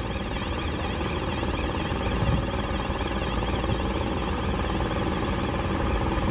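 Steady machinery noise from a box-girder launcher working as its leg is moved, with a faint high warbling tone running through it.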